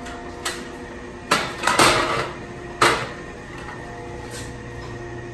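A few sharp knocks and clacks, the loudest a short clatter about two seconds in, over a steady hum.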